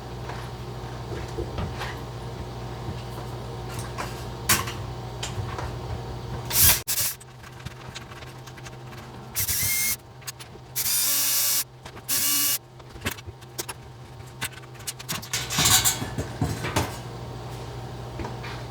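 Power drill running in three short bursts, backing out the screws that hold the old microwave's wall mounting bracket, with scattered clicks and knocks around them.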